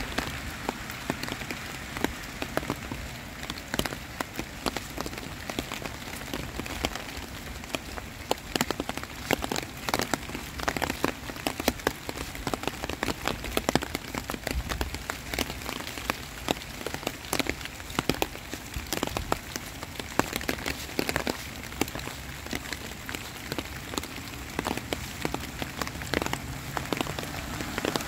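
Heavy rain falling: a steady hiss of rain on the surface, with many sharp, close raindrop hits.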